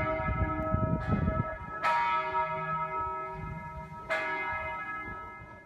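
Church bell tolling: struck roughly every two seconds, each stroke ringing on and slowly dying away.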